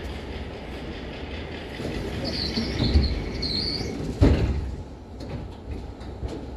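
Low rumble of a cable-pulled airport tram system at the station, with high metallic squeals from about two to four seconds in and a heavy clunk just after four seconds.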